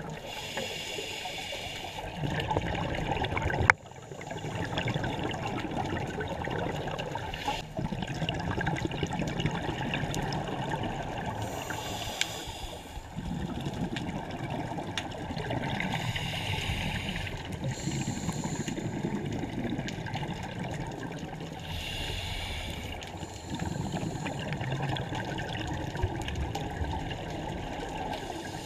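Scuba diver breathing through a regulator underwater: exhaled bubbles hiss and rush out in bursts every few seconds over a steady low rumble of water. A single sharp knock about four seconds in.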